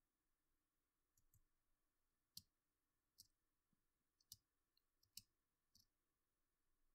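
Near silence broken by about eight faint, irregular clicks from a computer mouse and keyboard in use.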